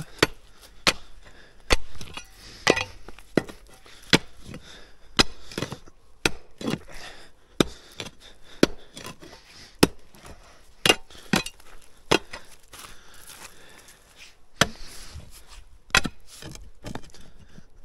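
Hand digging tool repeatedly striking stone and packed earth, sharp irregular blows about one a second with a short lull about two thirds of the way in: hacking at a gap to work loose stones that are wedged together.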